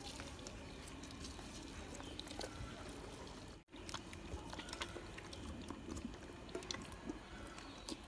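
Faint sounds of a goat eating from a plastic tub of moist bran-and-bread feed: scattered small clicks and wet munching. The sound cuts out for an instant a little before halfway.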